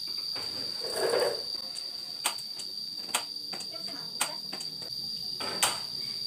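A steady high-pitched insect trill runs throughout, with four sharp clacks of cookware being picked up and set down.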